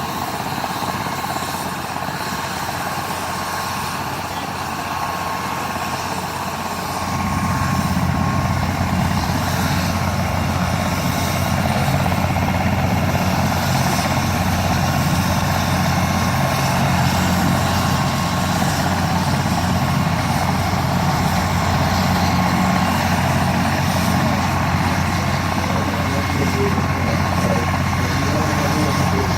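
Air ambulance helicopter running on the ground, its turbine whine steady; about seven seconds in the deep beat of the rotor comes up and the sound grows louder.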